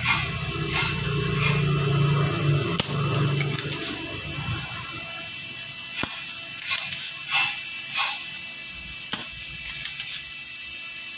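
Spring-loaded desoldering pump (solder sucker) being cocked and fired against a soldering iron on a TV circuit board: a run of sharp snaps and clicks, about eight, in the second half, as solder is sucked off the horizontal output transistor's pins to lift it out. A low hum fills the first few seconds.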